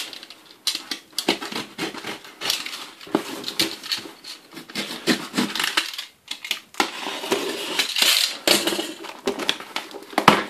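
Cardboard parcel being handled and opened: a utility knife slits the packing tape, then the flaps are pulled open, giving irregular scraping, tearing and rustling with many small clicks and knocks.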